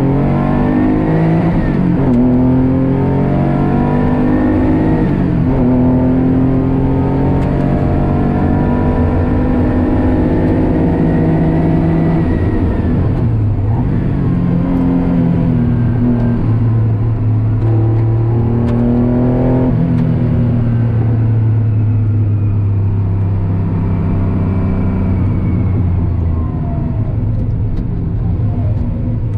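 Race car's engine heard from inside the cockpit, revving hard up through the gears. Its pitch climbs and then drops at each gear change several times. In the second half it holds a steadier note and eases off near the end.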